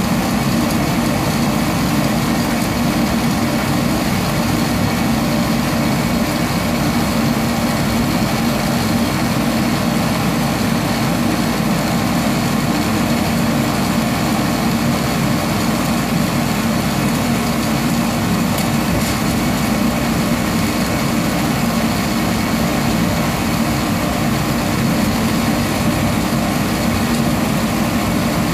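Sonofresco fluid-bed coffee roaster running steadily, its hot-air blower churning green coffee beans in the roasting chamber. It is early in the roast: the beans are still pale and no cracks are heard.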